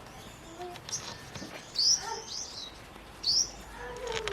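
Small birds chirping: two loud, short chirps about a second and a half apart, with fainter chirps around them.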